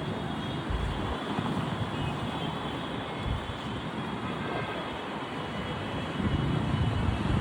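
Wind buffeting the microphone in uneven low thumps over a steady rushing noise.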